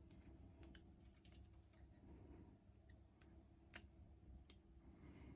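Near silence, with a few faint, scattered clicks of an opened Festool battery pack's plastic housing and connector being turned over in the hands.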